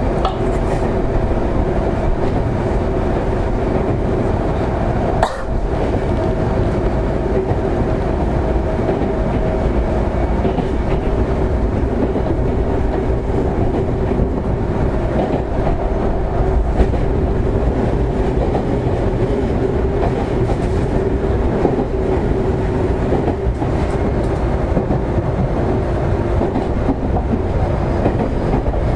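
Semboku 7020 series electric train running at speed, heard from inside the passenger car: a steady rumble of wheels on rail with a steady hum and a few brief knocks from the track.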